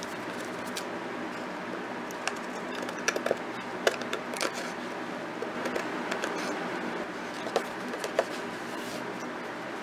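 Scissors cutting patterned scrapbook paper, with a few short snips and paper rustles scattered through, over a steady background hiss.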